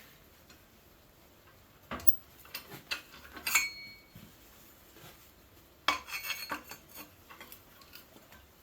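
Thin sheet-steel pieces clanking and clinking against metal as they are handled and set in a bench vise for straightening, in two clusters of knocks about two and six seconds in, one strike ringing briefly.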